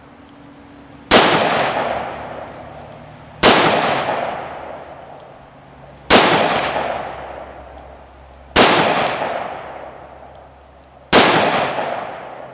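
Five shots from a nickel-plated Smith & Wesson Model 36 .38 Special revolver, fired slowly about two and a half seconds apart. Each shot trails off in a long echo.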